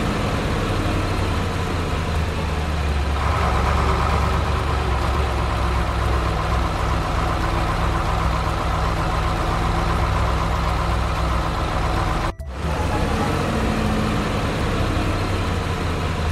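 A heavy truck engine idling steadily. It cuts out for an instant about twelve seconds in and resumes.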